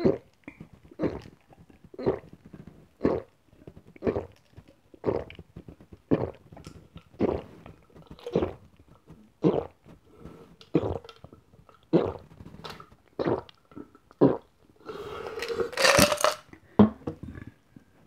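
Person gulping soda from a glass of ice in steady swallows, about one a second. Near the end comes a longer, noisier sound as the glass is drained.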